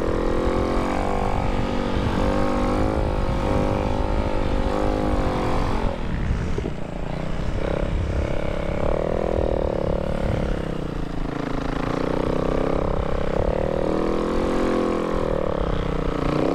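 Snow bike's dirt-bike engine running under riding load, its pitch rising and falling as the throttle is worked, with a rough low rumble underneath.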